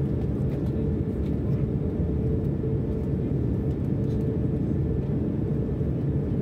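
Steady cabin noise of a Boeing 787 airliner in flight: a low, even rumble with a faint steady hum above it.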